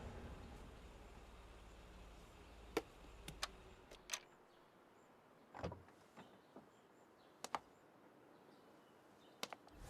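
Near silence with a faint low hum and a few short, sharp clicks or taps, scattered and irregular, with two close together about three and a half seconds in and another pair about seven and a half seconds in.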